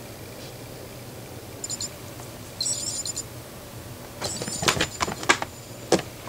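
Calico kitten scrabbling up a fabric couch, its claws scratching and catching on the upholstery in a quick run of sharp scratches and knocks in the second half. Two brief high, fluttering chirps come earlier.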